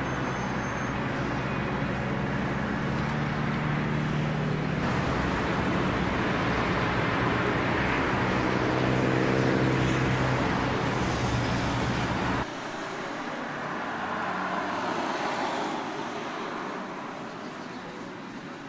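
Street traffic: cars driving past, with the low drone of a large engine in the first part, loudest after about nine seconds. After about twelve seconds it changes suddenly to lighter traffic, with cars passing.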